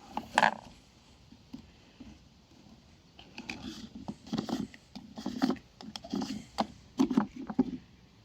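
Handling noise from a plastic wet/dry vacuum cleaner: irregular clicks, knocks and rubbing of its parts, sparse at first and busier from about three seconds in. The motor is not running.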